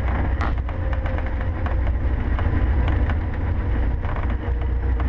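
Cessna 150's Continental O-200 four-cylinder engine and propeller droning steadily, heard inside the small cabin as the airplane rolls along the runway.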